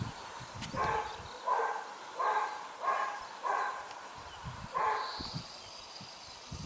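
An animal calling six times in short, evenly paced calls, about one every two-thirds of a second, with a longer gap before the last one.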